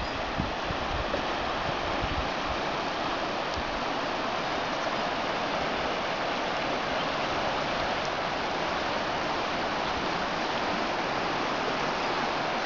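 Steady rush of the Dadès river in flood, its wide, muddy brown water swollen by heavy rain.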